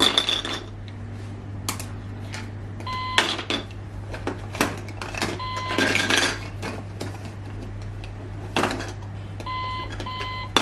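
Toy cash register's scanner giving two short electronic beeps, about three seconds in and near the end, between irregular knocks and rattles of plastic toy groceries being handled.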